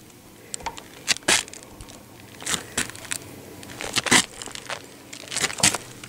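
A manual caulking gun being squeezed while a bead of high-heat silicone is laid along a seam: a dozen or so sharp, irregular clicks and short scrapes.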